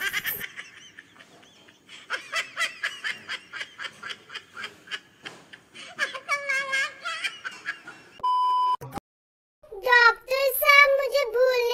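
Choppy voice sounds with giggling, then a short steady electronic beep about eight seconds in and a brief silence, then a young girl's sing-song voice near the end.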